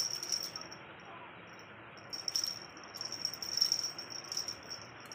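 A cricket's high, pulsing trill with a short pause near the start, over scattered light rattling clicks from a beaded wand toy as kittens bat at it.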